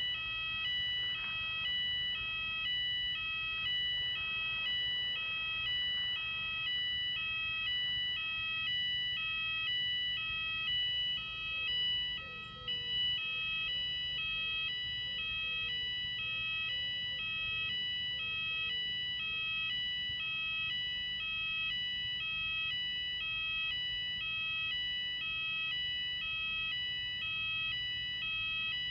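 Fire alarm sounders, weatherproof Fulleon Symphoni sounder-beacons on a Fulleon/Cooper addressable system, sounding for a routine weekly test. A high, steady tone is overlaid with an alternating two-note pattern that repeats about once a second.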